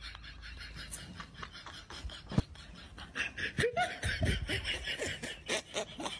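Laughter in quick repeated bursts, getting louder about three seconds in.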